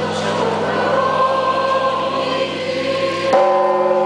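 Church bells ringing: deep bell tones hum on steadily, and about three seconds in another bell is struck, its set of tones ringing on after the stroke.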